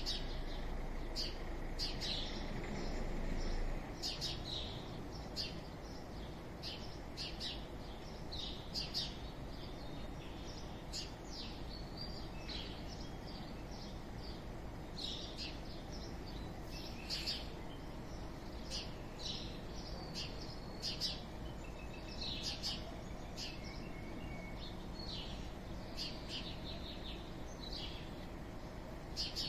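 Small birds chirping in many short, quick notes over a steady low background rumble, which eases slightly about four seconds in.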